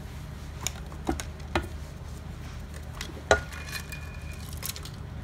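Light metallic clinks and knocks as the cylinder head of a BMW HP4 race engine is worked loose and lifted off the block. There are about five separate knocks, the loudest a little over three seconds in, followed by a brief metallic ring.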